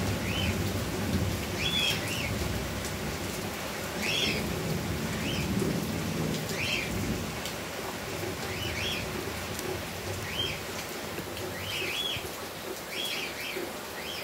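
Heavy rain falling steadily, with a low rumble beneath it. A small bird calls through the rain with short, repeated chirps, often in pairs, about once a second.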